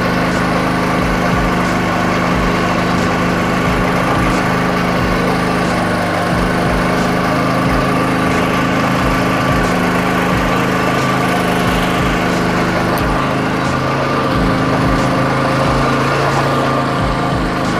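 Small engine of a homemade inverter generator running steadily, driving the generator's dynamo.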